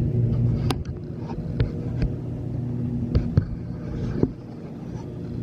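An engine running steadily, with about half a dozen sharp knocks and clacks over it.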